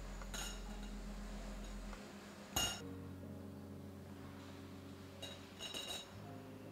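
Glass jar and glass lid clinking against metal tongs and a metal wire cooling rack as they are lifted out of hot water and set down: a light clink near the start, a louder one about two and a half seconds in, and a quick run of clinks between five and six seconds.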